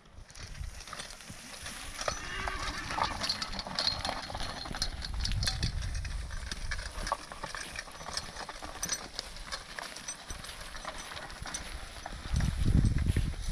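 Harnessed horse walking on grass while being ground-driven: irregular hoof steps and the small clicks and rattles of harness and dragging hitch gear, with a low rumble about five seconds in and again near the end.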